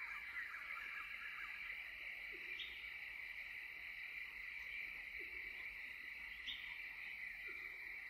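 Faint nature ambience: a steady high insect chorus with a few short bird chirps, and a soft low call repeating every two to three seconds.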